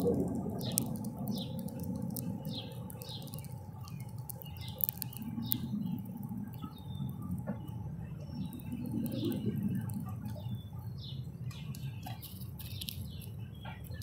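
Small songbirds at a feeder chirping: many short, quick chirps that fall in pitch, coming several a second in the first half and more thinly later, over a low steady rumble.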